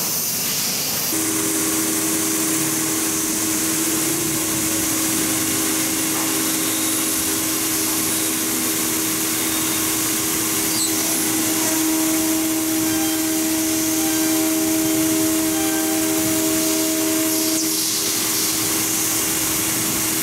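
CNC router spindle milling a metal sheet: a steady whine that begins about a second in and gains a higher tone for several seconds past the middle, over a constant hiss of coolant spray.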